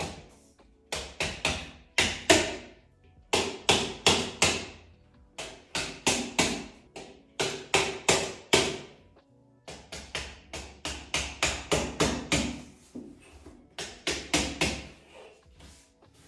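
Wooden dowels knocked into the particleboard panels of an IKEA Kallax shelf, using a measuring tape as a makeshift hammer. Sharp knocks come in quick runs of three to five, a few a second, with short pauses between.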